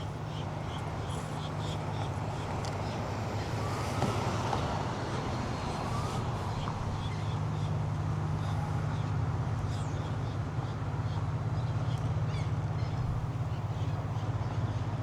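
Steady low drone of road traffic crossing a bridge, with a constant hiss.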